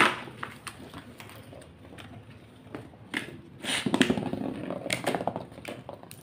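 Beyblade Burst tops launched into a cardboard stadium: a sharp click at the start, then scattered clicks, and from about three seconds in a dense rattle of rapid clicks as the two spinning tops clash with each other and knock against the stadium.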